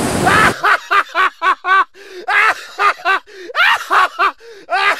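A man laughing in quick repeated bursts. About half a second in, the outdoor background cuts out and a clean, high-pitched laugh carries on in short rapid bursts with pauses between them, a laugh sound effect laid over the edit.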